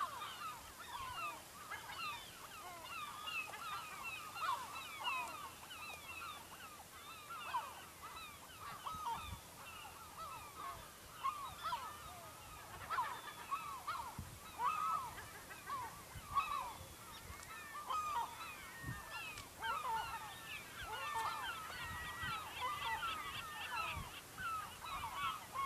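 A large flock of seagulls calling continuously: many short, overlapping cries with no break.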